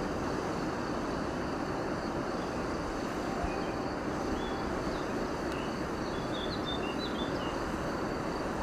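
Steady outdoor background noise, heaviest in the low end, with a few short high chirps of small birds in the middle and second half.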